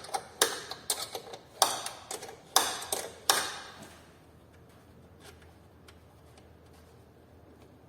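Hand tools working metal on the car's suspension: a series of about six sharp metallic clicks and knocks with short ringing tails, stopping about three and a half seconds in, after which only faint ticks remain.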